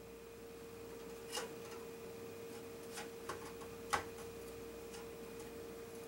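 A few light clicks and taps as a Wi-Fi expansion card is lined up and knocks against the motherboard slot and case, the loudest about four seconds in. A faint steady hum runs underneath.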